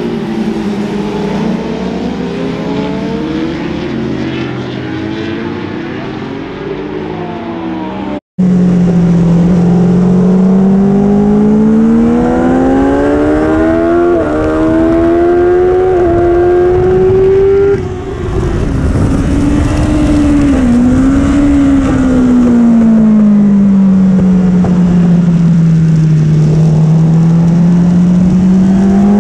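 Racing motorcycles' inline-four engines at full throttle, first passing by, then heard from on the bike itself: the engine note climbs steadily for about ten seconds, drops sharply as the throttle closes, falls slowly, then starts climbing again near the end.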